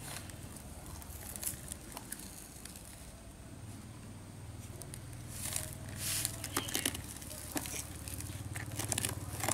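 Plastic toy trucks knocking and scraping in sand, with sand spilling from a tipped toy dump truck bed: a string of small clicks and gritty rustles that gets busier about halfway through.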